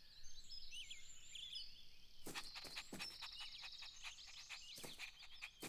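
Faint garden ambience of small birds chirping and twittering, with a short rapid trill about three seconds in.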